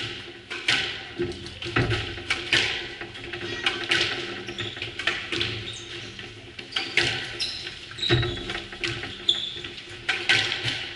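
Squash rally: the ball smacking off rackets and the court walls again and again, about once a second, with a few short squeaks from court shoes on the wooden floor in the second half.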